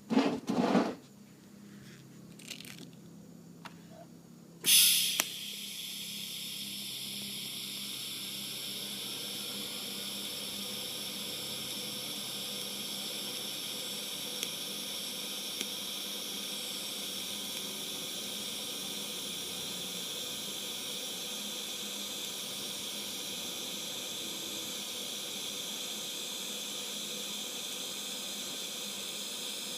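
A few knocks, then a sudden loud burst about five seconds in as a TIG welding arc strikes, followed by the steady hiss of the arc and shielding gas through the torch's cup.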